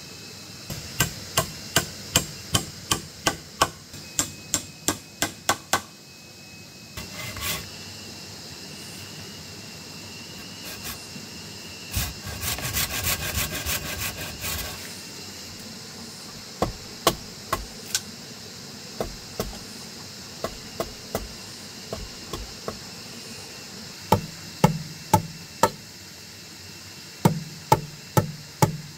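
Hammer blows on wood in runs of sharp strikes, about two a second, with a denser stretch of a few seconds near the middle and slower, scattered blows later.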